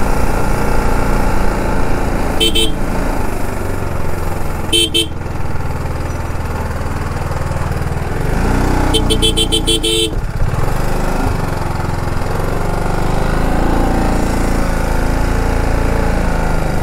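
A motorcycle engine runs steadily amid traffic while vehicle horns honk. There is a short honk about two seconds in, another around five seconds, and a longer, rapidly pulsing horn around nine to ten seconds in.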